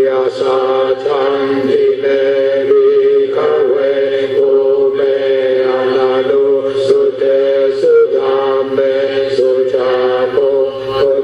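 Buddhist chanting: a voice reciting on a nearly steady, held pitch with only brief breaks.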